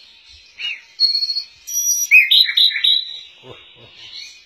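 A small songbird singing: a short curved chirp about half a second in, a held high whistle near one second, then a quick run of chirps and warbled notes around two seconds in.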